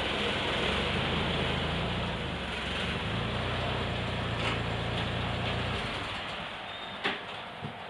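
Car engine running steadily, then stopping about six seconds in, followed by two short clicks.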